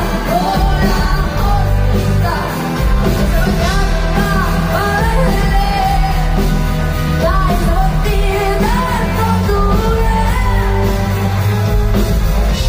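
A live pop-rock band plays loud amplified music with electric guitars, bass and drums under a female lead vocal, heard from among the audience in a concert hall.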